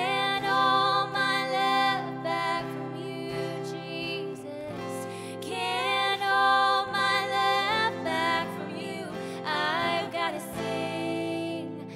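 Two women singing a slow worship song together, accompanied by a strummed acoustic guitar.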